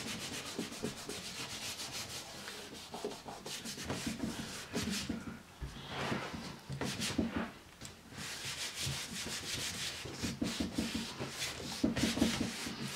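Bare hands rubbing a sheet of paper laid over an inked lino block, a dry brushing sound in many quick strokes with a couple of short pauses. This is hand burnishing, pressing the paper down so the ink transfers from the lino.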